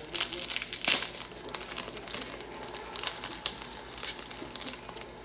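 Packaging wrapping crinkling and rustling as it is handled and pulled apart by hand: irregular crackles, loudest about a second in, thinning out near the end.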